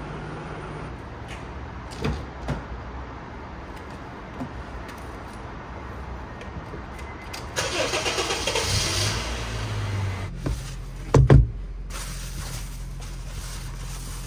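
Honda Fit's four-cylinder engine cranked and started about eight seconds in, then settling to a low idle. A couple of knocks come about two seconds in, and a pair of loud thumps follows about three seconds after the start.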